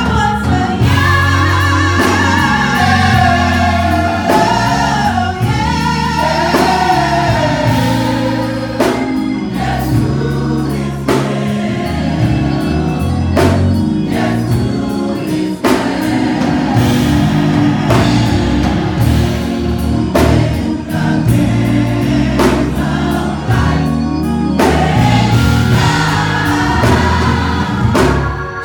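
Gospel choir singing in harmony with vibrato, over a band with bass and drums.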